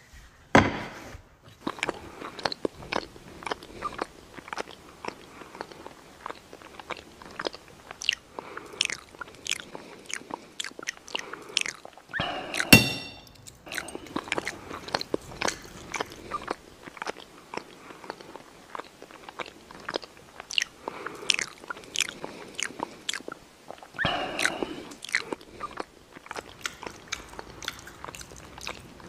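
A man eating very loudly: open-mouthed chewing, a fast, irregular string of wet smacks and crunches, with one louder sharp noise about halfway through.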